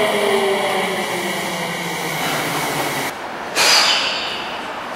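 Tsukuba Express TX2000 electric train running away along the track: its motor whine and running noise slowly fall in pitch. After about three and a half seconds the sound cuts, and a sudden loud burst of train noise starts and settles into a steady rumble.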